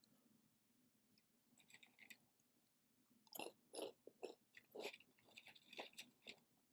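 A person chewing crunchy food close to the microphone: a few faint crackles, then a run of crisp crunches from about three seconds in.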